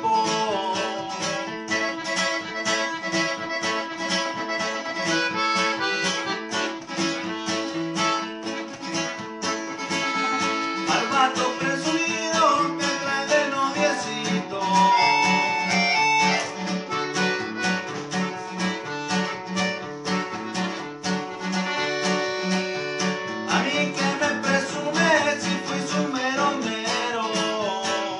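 Accordion and strummed acoustic guitar playing a norteño song together, the accordion carrying the melody in held notes over the guitar's steady rhythmic strumming.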